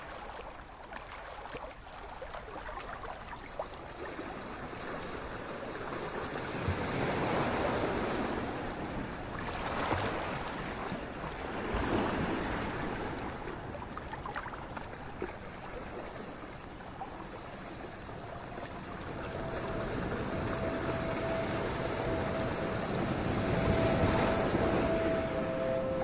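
Sea waves breaking and washing up a beach, with the surf noise rising and falling in slow swells every few seconds.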